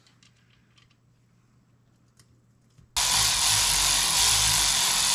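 Faint small clicks of parts being handled. About three seconds in, a loud steady hiss starts abruptly and runs for about two and a half seconds.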